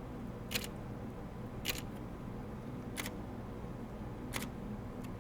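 Fujifilm X-H1 mechanical shutter fired in single frames: four short, sharp clicks about a second and a quarter apart.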